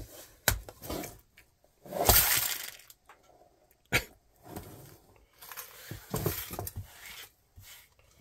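A handful of small electronic components spills from a cigar-box sorting tray, clattering and scattering across a cutting mat about two seconds in. Sharp knocks of the wooden boxes being handled come before and after, with more light rattling as the parts are pushed about.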